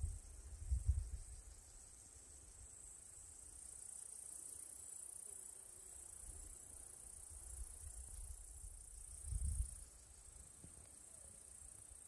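Faint, steady high-pitched chirring of insects in the summer meadow grass, with a low rumble that swells briefly about a second in and again near ten seconds.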